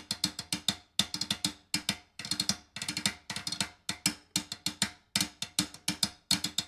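Percussive music: short clusters of sharp drum hits, separated by brief silences.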